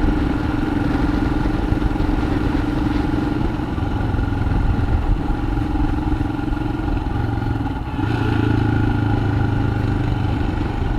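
Motorcycle engine running steadily while riding, with a brief dip about eight seconds in before it runs on.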